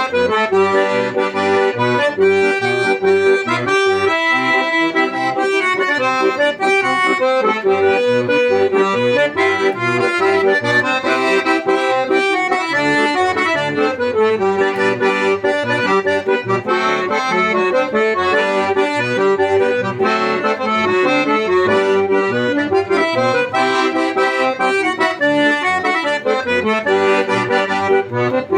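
Accordion (sanfona) playing a tune, with melody and chords over short bass notes in a steady rhythm.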